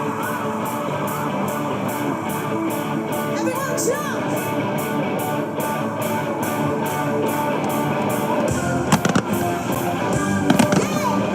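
Music with guitar over a fireworks display, with a few sharp firework bangs about nine seconds in and again near the end.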